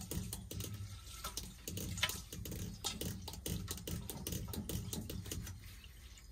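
Gasoline pouring from a siphon pump's tube into a stainless steel bowl, splashing and bubbling. The gasoline is being drained from a badly rusted fuel tank and is full of rust.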